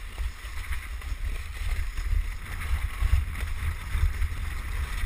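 Wind buffeting the microphone in heavy, uneven gusts, over a steady hiss of a wooden krňačka ski-sled's skis sliding on packed snow at speed.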